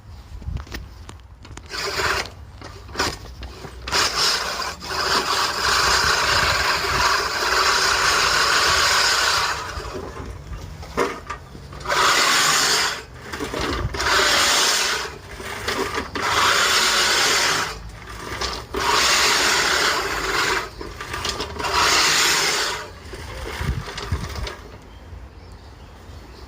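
Hurricane HHR40 hand-pushed reel mower, its spinning cylinder blades whirring and rasping as it is pushed. There is one long pass of several seconds, then a run of shorter pushes a second or two long, with pauses between them.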